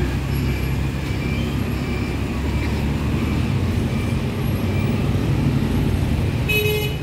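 Steady low rumble of road traffic around an outdoor street-food stall. A brief high-pitched tone sounds near the end.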